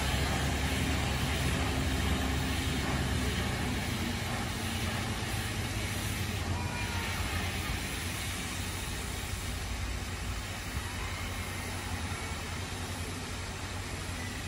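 A steady low mechanical rumble, slowly fading, with faint voices of onlookers mixed in.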